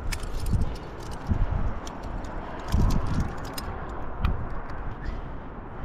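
Climbing gear clinking on a harness rack: scattered sharp metallic clicks over a steady rushing noise, with a few soft low thuds.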